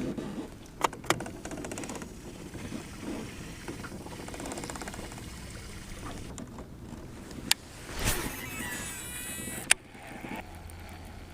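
Fishing rod and reel being cast and worked: a few sharp clicks, and a whirring of line off the reel from about eight seconds in that ends with a click, over low outdoor background noise.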